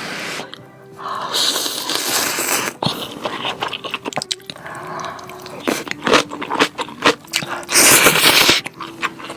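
Background music over noodle eating: two long, loud slurps and scattered wet chewing clicks.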